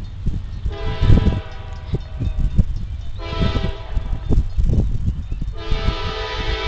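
Diesel locomotive air horn sounding a chord in long blasts, about three in a row with short breaks between them, as the train approaches. Irregular low rumbling thumps run underneath.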